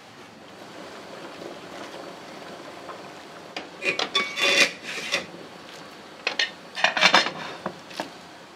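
Kitchen clatter of dishes and utensils knocking and scraping, in two bursts, the first about four seconds in with a brief ring, the second about seven seconds in, over a low steady background.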